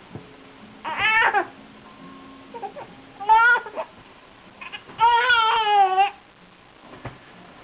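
Baby crying in three wavering wails, about a second in, midway, and a longer one of about a second near the end.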